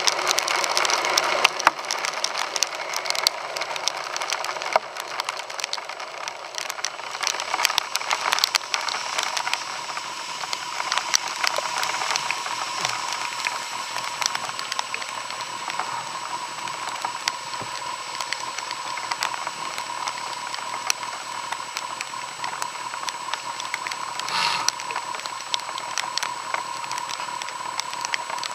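Heavy rain with a steady hiss and many small ticks of drops, with a steady whine underneath that becomes clearer about halfway through.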